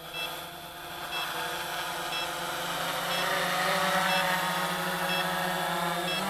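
Quanum Nova GPS quadcopter's electric motors and propellers whining, getting louder and shifting in pitch about three seconds in as the throttle comes up. Short high beeps repeat about once a second.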